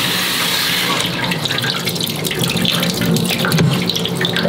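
Kitchen tap running into a stainless steel strainer of soaked yellow lentils for a quick rinse, cut off about a second in. Then irregular clicks and rattles as the metal strainer and the wet lentils are shaken and handled over the pot.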